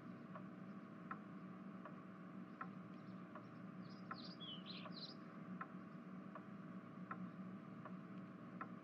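Faint room ambience: a clock ticking evenly about twice a second over a steady low hum, with a few short bird chirps about four to five seconds in.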